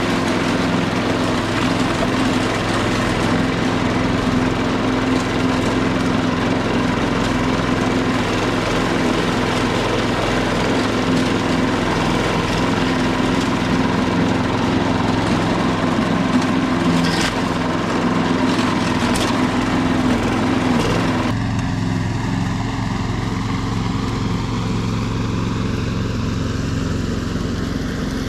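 Petrol lawn mower running steadily while mowing grass. About three-quarters through, the higher-pitched part of its sound drops away suddenly while the engine note carries on.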